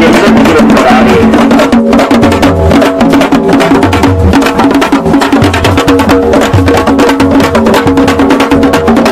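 Parai frame drums beaten fast and hard with sticks: a loud, dense, continuous rhythm of strokes, as played by a marching drum troupe.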